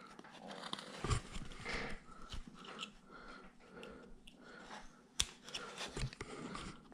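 Carving knife shaving and cutting into a wooden figure: a string of faint scraping cuts with small clicks, the sharpest click about five seconds in.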